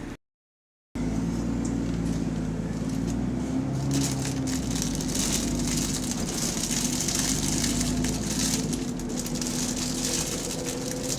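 A bus engine running while the bus is under way, heard on board: a steady, pitched drone, with a hiss that comes in about four seconds in. The bus has a large exhaust leak. The sound cuts out completely for under a second just after the start.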